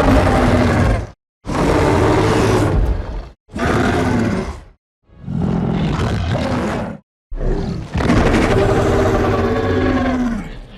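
Skar King's roars from the film's sound design: five separate loud, growling roars, each one to three seconds long with short pauses between them, the last one the longest.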